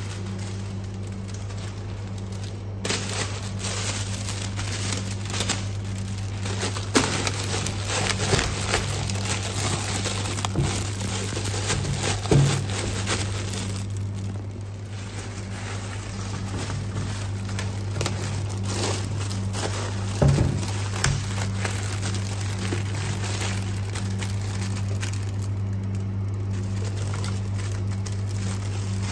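Clear cellophane wrap crinkling and crackling in irregular bursts as hands fold and press it around a box, over a steady low hum.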